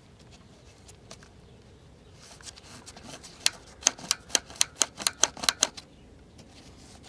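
A quick run of about ten sharp clicks, four or five a second, as the volume knob of a Sokol 404 transistor radio is turned with a gloved finger, after a few seconds of faint rustling.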